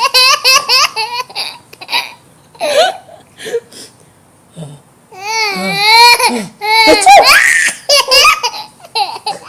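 A young child laughing in fits. It starts with quick, rhythmic giggles, then short scattered bursts. About five seconds in comes a long, high-pitched laugh that wavers in pitch, followed by another and a few short giggles near the end.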